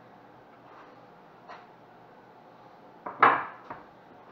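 Kitchen clatter as a wooden cutting board with its knife is cleared off a granite countertop: a faint tap a second and a half in, then one loud, sharp knock about three seconds in with a short ringing tail.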